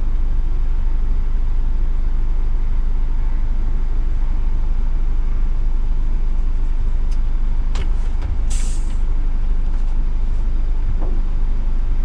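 Scania S500 truck's diesel engine idling steadily, heard inside the cab. About eight and a half seconds in there is a short hiss of released air from the truck's air system.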